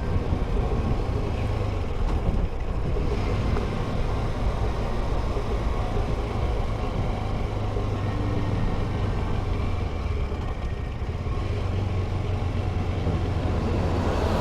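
KTM adventure motorcycle engine running steadily while riding, with a constant low engine hum and road and wind rush.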